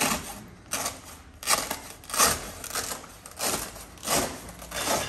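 Velcro strips on a rooftop tent's canvas wall being ripped apart by hand as the canvas is pulled off the roof shell. It comes as a run of short tearing rips, about eight in five seconds.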